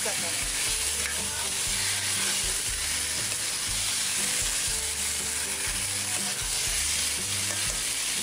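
Spiced taro (arbi) masala sizzling steadily in oil in a stainless steel kadai while it is stirred and turned with a steel spoon.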